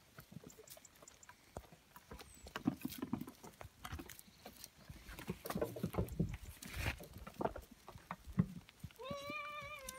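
Goat kids moving over stony ground: an irregular clatter of small hoof clicks and knocks on rock, with some heavier thuds midway. Near the end one goat kid gives a single long, steady bleat.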